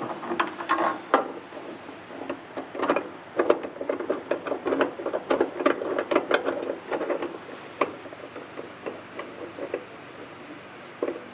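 Irregular metallic clicks and rattling from hand tools and steel parts being worked while a subframe connector is fitted, busiest in the middle and thinning out after about eight seconds, with one last click near the end.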